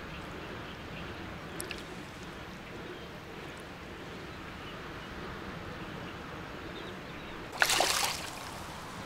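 A wild carp splashes once, briefly and loudly, near the end as it is let go into the water, over a steady low sound of moving water.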